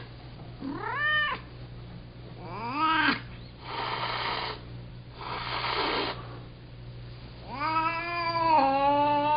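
Two domestic cats in an angry standoff: drawn-out rising-and-falling yowls, with two breathy hisses in the middle and a long wavering yowl near the end.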